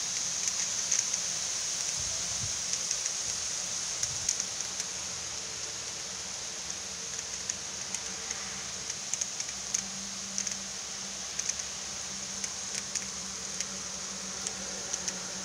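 Heavy rain pouring down: a steady dense hiss with scattered sharp ticks of drops, a little louder in the first few seconds.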